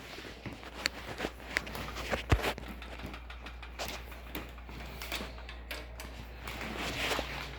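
Scattered light clicks and knocks of computer parts being handled as a power supply and its bracket are fitted into a PC case, with one sharper knock about two and a half seconds in.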